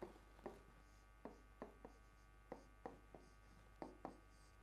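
Pen tapping and scratching on a whiteboard screen while writing characters: about ten faint, short ticks at uneven intervals, over a steady low mains hum.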